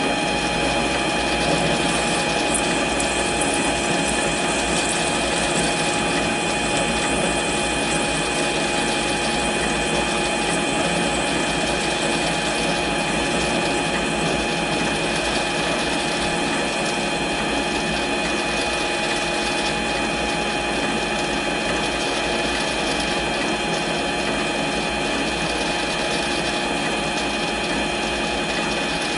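A mini lathe running steadily with a constant whine while its parting blade cuts off a 1-1/4 inch 1018 steel bar.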